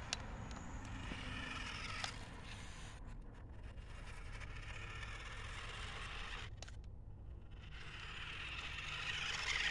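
A small RC car driving across a lawn: a faint, steady whir from its electric motor, with its tyres brushing through the grass. There is a light click at the start and another about two seconds in, and the sound grows a little louder near the end.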